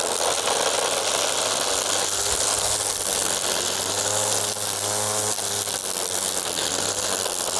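Black+Decker LST136W 40V cordless string trimmer running, its electric motor humming steadily while the freshly wound 0.065-inch nylon line whirs through grass and weeds.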